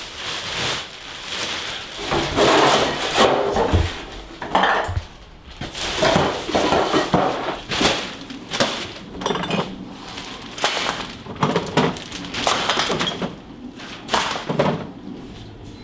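Household items being handled and cleared out: irregular clatter, knocks and clinks of food containers, jars and bottles, mixed with rustling.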